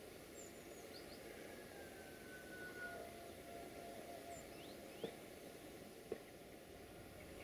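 Faint outdoor background noise with a few short bird chirps and a faint, drawn-out high tone. Two sharp clicks come about five and six seconds in.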